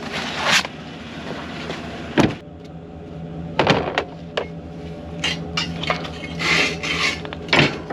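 Sharp metal knocks and clanks, about six spread through, with a scraping rustle near the end, from parts being handled on a combine header, over a steady low machine hum.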